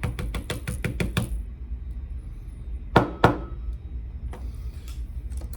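Small metal lock parts and tools being handled on a work surface: a quick, even run of little clicks for about a second, then two sharp metallic clicks with a brief ring about three seconds in.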